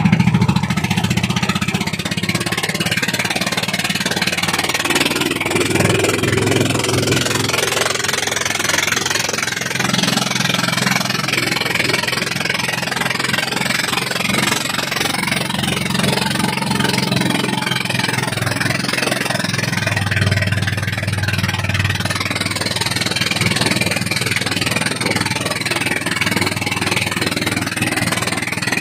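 Small wooden fishing boat's engine running steadily under way, with water rushing and splashing along the hull.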